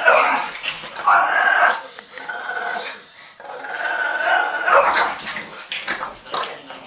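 Boston terriers growling in rough tug-of-war play, in three loud bouts, followed by a run of short sharp scuffling noises.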